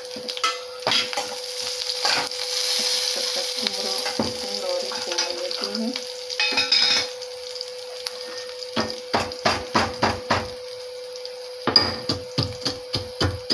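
Garlic, green chillies and cumin sizzling in hot oil in a steel kadhai, stirred with a slotted steel spoon. In the second half come runs of quick metal knocks and clinks of the spoon against the pan, about three to four a second.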